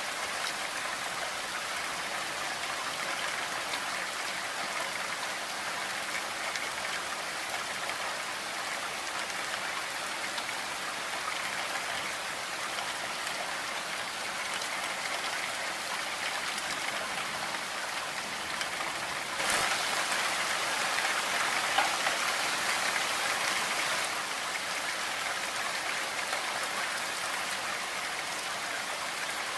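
Steady rain, an even hiss of countless drops. About two-thirds of the way through it suddenly grows louder for some four seconds, then eases back.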